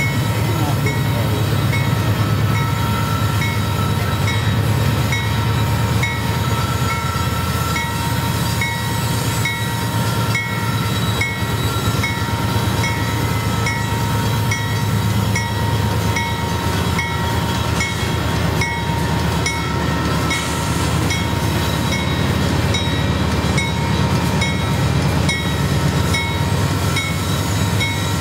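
Union Pacific diesel locomotives heading a loaded coal train slowly up a steep grade, their engines running hard under heavy load. A steady deep rumble with a constant high whine over it.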